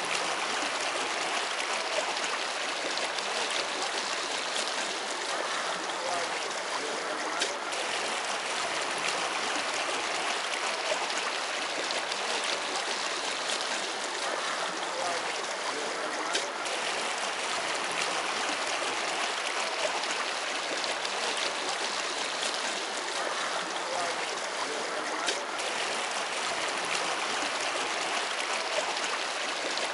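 Steady rush and ripple of lake water washing along a moving shikara's hull, with a few faint clicks.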